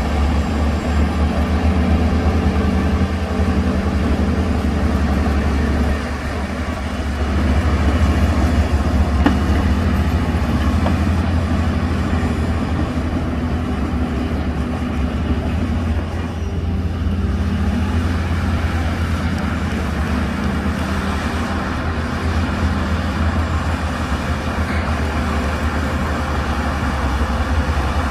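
Heavy diesel engine of earthmoving machinery running steadily with a deep drone, easing briefly about six seconds in.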